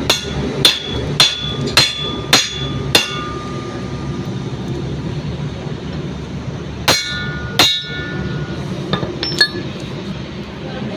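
Steel hammer striking the propeller shaft's universal-joint yoke while a new cross is fitted: six sharp, ringing metal blows about half a second apart, then two more after a pause of a few seconds, over a steady low hum.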